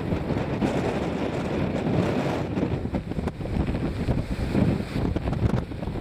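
Storm-force wind in a blizzard, blowing hard across the microphone, buffeting and gusting louder and softer.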